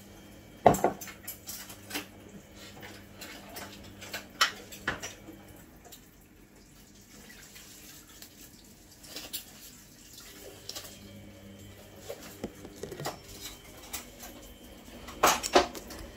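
Kitchen clatter of containers and utensils being handled, knocked and set down, with separate sharp knocks scattered throughout: the loudest is about a second in, with another strong cluster near the end.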